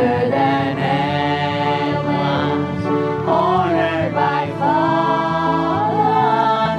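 A hymn sung by a lead voice with the congregation, over instrumental accompaniment with a steady bass line.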